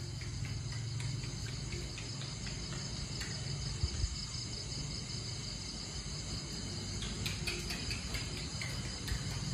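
Crickets chirring steadily, with scattered light clicks and taps growing more frequent in the last few seconds.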